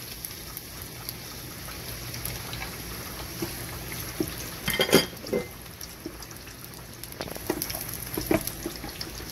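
Hot oil sizzling steadily as chopped garlic fries in a wok. A silicone spatula knocks and scrapes on the pan once about five seconds in, the loudest sound, with a few lighter taps later.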